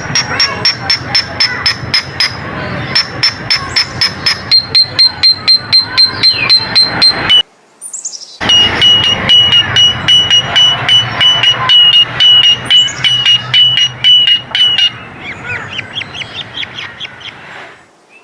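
Coleto (Sarcops calvus) calling: runs of short, evenly repeated notes, about four a second, each run held at one pitch and stepping lower from run to run. A brief break comes about halfway, and the calls fade near the end.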